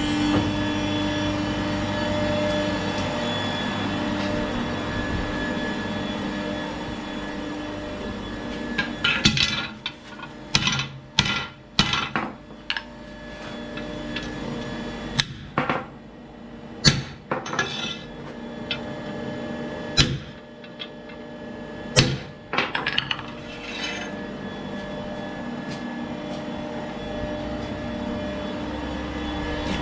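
A steady machine hum in a forge, then about a dozen sharp metallic knocks and clanks at irregular intervals from about nine seconds in, typical of hot steel being cut and handled at an ironworker. The hum carries on after the knocks stop, near the end.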